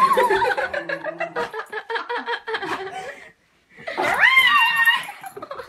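A person laughing in quick bursts, then an excited small dog whining: one high whine that rises and is held for about a second.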